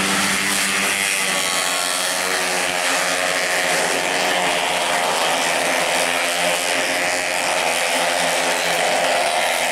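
A pack of racing automatic scooters running at high revs, several small engines overlapping, their pitches drifting up and down as the riders open and ease the throttle through the corner.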